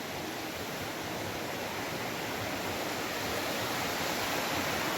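Rushing water of the Maligne River churning through the canyon, a steady roar that grows slightly louder.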